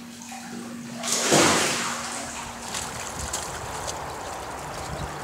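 Water splashing and sloshing in a swimming pool as a swimmer moves along its edge, with one louder splash about a second in, over a steady low hum.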